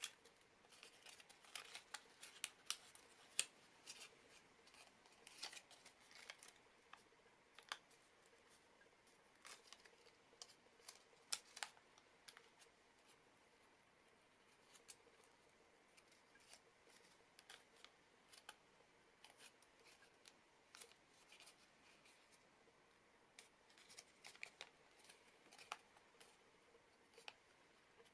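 Origami paper being folded and creased by hand: irregular crisp crackles and taps of the stiff paper, sparser for a few seconds in the middle.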